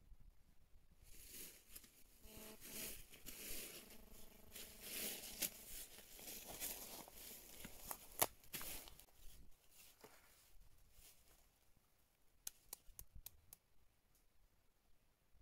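Dry fallen leaves rustling and crunching under footsteps, with one sharp click about eight seconds in. Later the rustling dies down and a few light clicks follow.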